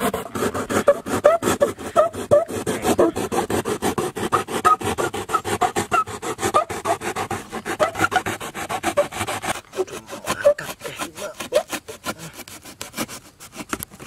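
Knife blade sawing through corrugated cardboard in rapid back-and-forth strokes, several a second.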